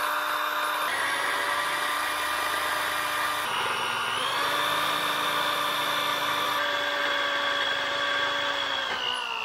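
Corded electric drill running under load, boring a hole through a 3/8-inch mild steel plate. The motor's pitch shifts a little as the feed pressure changes, then falls away right at the end as the trigger is released and the drill spins down.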